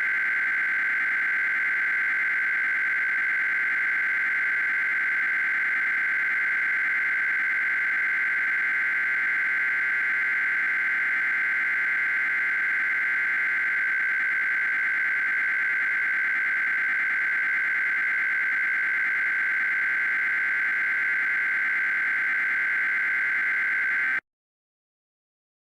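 Continuous buzzing, warbling data tone of an Emergency Alert System encoder, flicking rapidly between two high pitches at a steady level. It cuts off suddenly about a second before the end.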